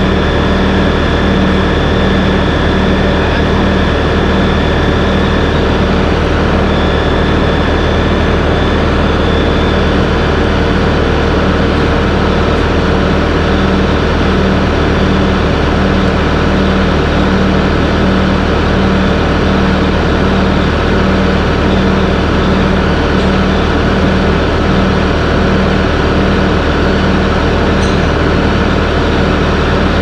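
Heavy diesel engine idling steadily, its low hum throbbing evenly about one and a half times a second.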